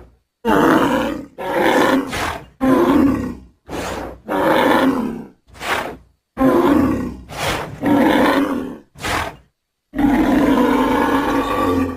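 Bulls bellowing in a rapid series of about ten short calls, each under a second, cut apart by abrupt silences. One longer bellow of about two seconds comes near the end.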